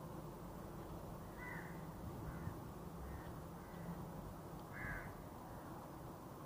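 Crows cawing: a few short calls scattered through, the clearest about a second and a half in and again near five seconds, over a low steady background rumble.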